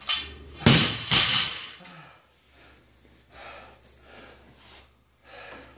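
Loaded barbell with black bumper plates dropped onto rubber floor mats, a loud crash followed by a second as it bounces. Then heavy, panting breaths from the exhausted lifter.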